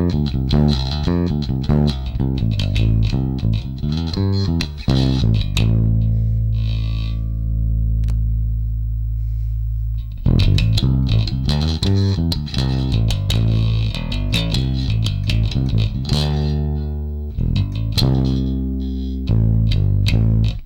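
Music Man StingRay 4 electric bass played through a Markbass Little Mark Tube 800 amp head with the preamp set fully to its solid-state side. A run of plucked notes, one long held low note about a quarter of the way in, then more riffing that stops sharply at the end.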